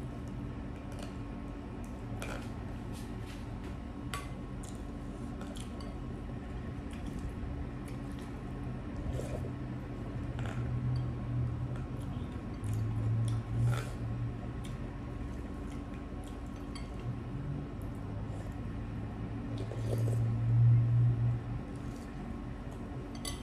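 Close-up eating sounds of noodle soup (thukpa): noodles slurped and chewed, with scattered small clicks of a plastic spoon against a glass bowl.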